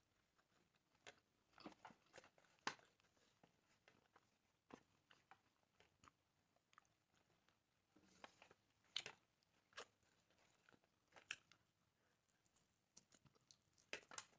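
A person chewing and biting into grilled chicken close to the microphone: quiet, irregular crunchy clicks, the sharpest about three seconds in and again near nine, eleven and fourteen seconds.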